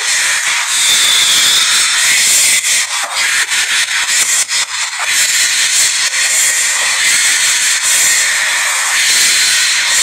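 Loud steady hiss, with a run of crackling clicks and dropouts in the middle.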